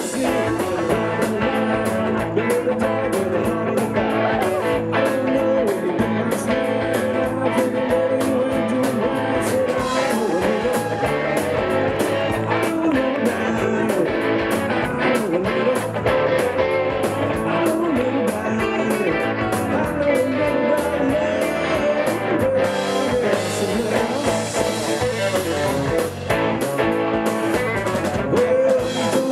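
Live Southern rock band playing: electric guitars over a drum kit, with a singer.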